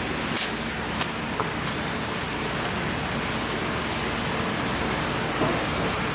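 A steady rushing hiss like running water, with a few brief sharp splashes in the first three seconds as a live bigfin reef squid is tipped, dripping, from a landing net into a plastic tray.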